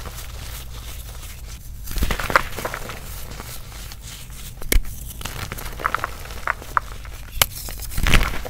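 Hands squeezing and crushing powdery reformed gym chalk and cornstarch: soft crunching with short squeaks from the compressed powder. Two sharp cracks come as chunks snap, a little past halfway and again later.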